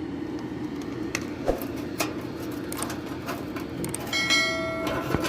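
Clicks and light clinks of metal tools and parts being handled, with a short bright metallic ring about four seconds in, over a steady low background hum.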